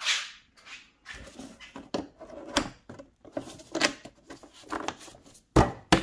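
Knocks, clicks and rustling of a plastic air filter housing being handled and pressed into place on top of the engine, irregular throughout, with two sharp knocks near the end.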